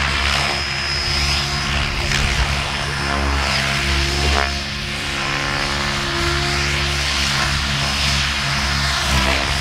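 Two electric Mikado Logo 700 RC helicopters flying 3D aerobatics: a steady rotor drone under a motor and tail-rotor whine that rises and falls in pitch as the models swoop past and change direction.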